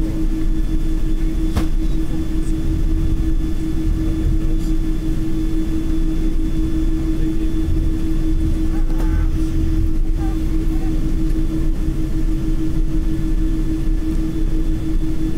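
Steady airliner cabin noise while taxiing, heard from inside the cabin: a low rumble with a strong, steady hum. A single sharp click comes about one and a half seconds in.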